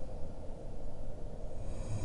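Deep, steady low rumble in the pause between two slow, heavy breaths of a sound-designed sleeping dragon. The next breath begins to swell near the end, with a rising hiss over the rumble.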